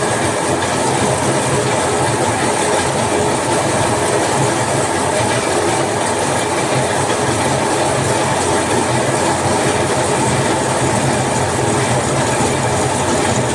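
Workshop machinery running steadily, a continuous even mechanical clatter.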